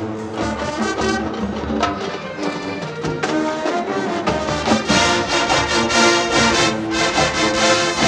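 Marching band playing: full brass section with drumline percussion, getting louder about five seconds in.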